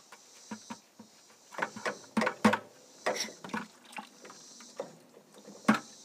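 Hydraulic cylinder being dismantled by hand: irregular metal clinks and knocks as the piston rod and piston are slid out of the barrel, with oil trickling into a plastic bucket. The loudest knocks come a little before the middle and again near the end.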